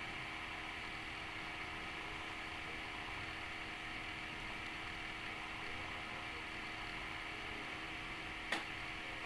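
Steady background hum and hiss, with one short click near the end.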